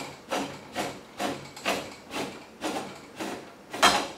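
Rip fence of a DeWalt DCS7485 cordless table saw being moved along its telescoping rack-and-pinion rails, a series of sharp mechanical clicks about twice a second, the loudest near the end.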